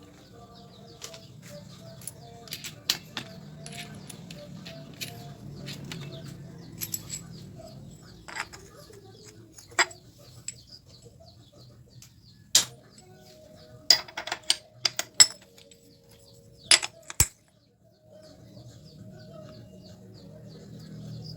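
Scattered sharp metallic clicks, taps and knocks of hand tools and small engine parts being handled, over a faint steady hum. The audio cuts out briefly about three-quarters of the way through.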